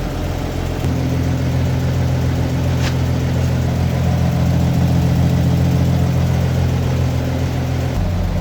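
Toyota FJ40 Land Cruiser's engine idling steadily. Its tone changes slightly about a second in and changes back near the end.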